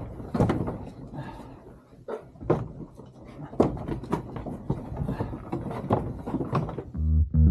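Irregular knocks and clatter from ewe lambs packed in a sheep race while they are being vaccinated. Background music with bass and guitar comes in near the end.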